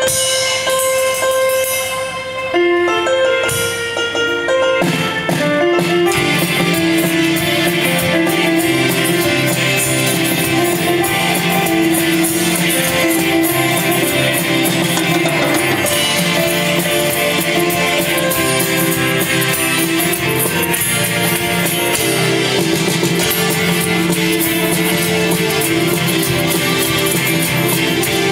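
Live instrumental band music from acoustic guitars, tabla, drum kit and keyboard. A lone melody of held single notes opens it, and the full band with drums comes in about five seconds in and plays steadily on.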